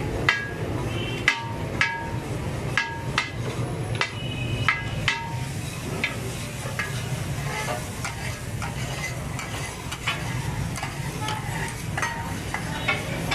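A knife chopping chicken on a large steel tawa griddle, the blade striking the metal about twice a second with a ringing clink on each hit. The strikes thin out after about six seconds. Under them there is a steady low hum and the sizzle of frying.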